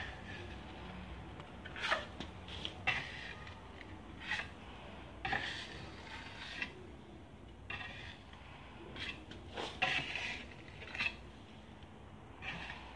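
Metal putty knife scraping across a filled patch on a wall, smoothing off the filler in about ten short, irregular strokes.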